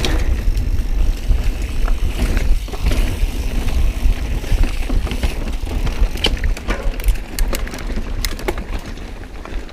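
Mountain bike being ridden over a rough trail: tyres on dirt and rock, with the chain and frame rattling in many sharp clicks over a heavy low rumble. It quietens near the end.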